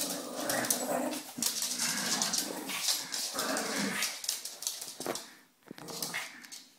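Shih Tzu vocalizing in play, a string of whines and low growls that dies away about four and a half seconds in.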